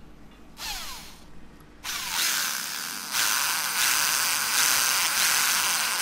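Electric drill with a 1.5 mm bit boring a hole into the plastic balance-bar hub of an RC helicopter's main shaft. It runs briefly about half a second in, then from about two seconds in runs steadily, its whine rising as it spins up.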